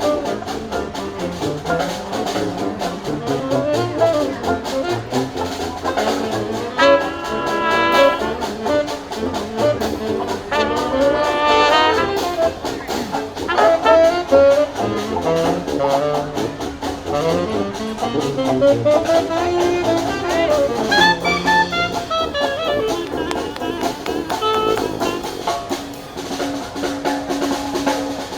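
Live jazz band with horns carrying the melody over drums, with a few long held notes along the way.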